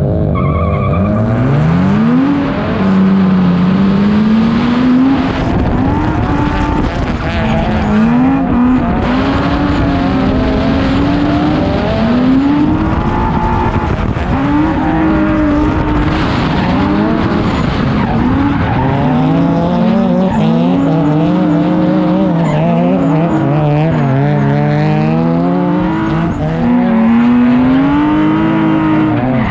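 Drift car engines revving up and down over and over under hard throttle, with tyres squealing and skidding through the slides.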